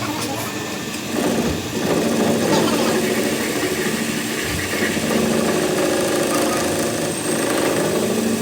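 A motor-driven workshop machine running with a steady hum, coming up about a second in.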